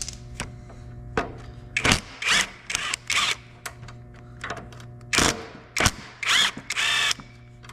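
A socket tool on the 3/8-inch bolts of a Tecumseh lawn mower engine: several short bursts of rapid clicking, with sharp metal clicks between them, over a faint steady hum.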